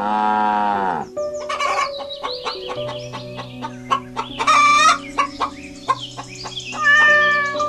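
Farmyard chicken sounds, a rooster crowing and hens clucking, over background music. Three loud calls come at the start, about halfway and near the end, with short clucks between.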